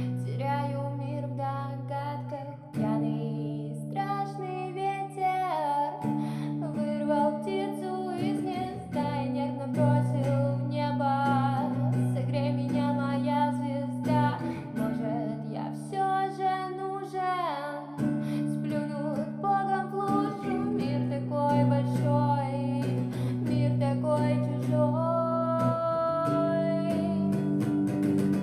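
A song: a voice singing a melody over strummed acoustic guitar.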